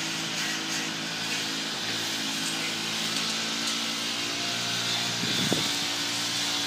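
Steady electric-motor hum with an even hiss, from an electric reach truck's motor running, with a light knock about five and a half seconds in.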